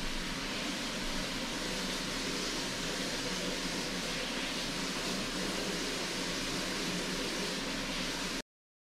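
Steady, even background hiss with no distinct events, cutting off abruptly to silence about eight and a half seconds in.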